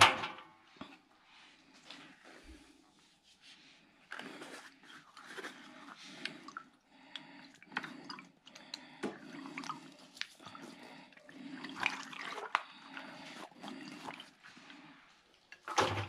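Inflated latex balloons being handled and pushed into a front-loading washing machine's drum: irregular rubbing and rustling of rubber against hands and the drum, with a sharp knock at the start and another near the end.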